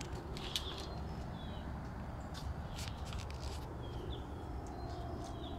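Birds chirping outdoors: short, high chirps, several falling in pitch, come every second or so with a few sharp ticks, over a steady low rumble.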